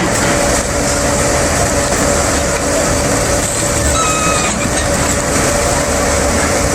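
Heavy machinery running steadily: dense engine-like noise with a constant whine underneath.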